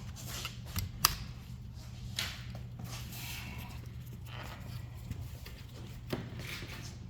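Scattered small plastic clicks and handling sounds as a door-panel wiring connector is pried and unclipped with a tool, the sharpest click about a second in, over a steady low hum.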